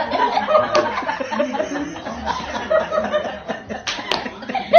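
People laughing and chuckling, with scraps of talk in between.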